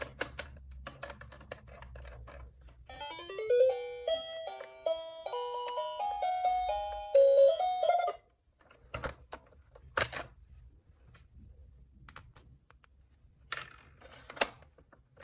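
A battery-powered toy's electronic chip melody: a short tune of plain beeping notes lasting about five seconds, starting about three seconds in. Light plastic clicks and taps before it, and a few sharper knocks afterwards as the toy is handled.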